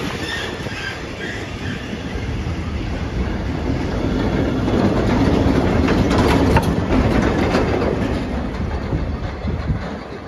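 Train with a multi-axle heavy-load wagon rolling past, its wheels clattering over the rail joints. It is loudest with a run of sharp clicks about six to seven seconds in, then fades near the end.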